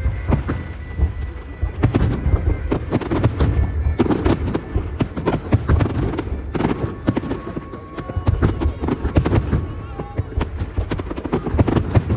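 Fireworks display: a dense, irregular barrage of shell bursts and crackling with deep rumbling booms, many reports overlapping.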